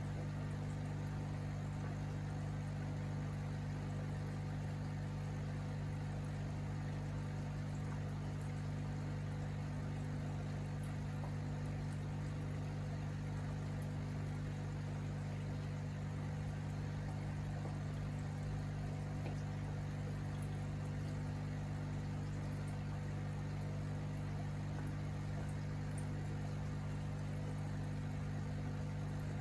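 Aquarium air pump and tank equipment running with a steady low hum, air bubbling into the water.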